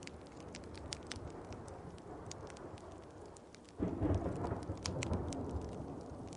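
Wood fire crackling over steady rain, with a low roll of thunder that breaks in suddenly about four seconds in and slowly fades.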